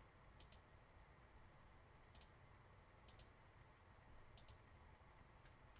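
Faint computer mouse clicks, about five spread over a few seconds, most of them a quick double tick, against near-silent room tone.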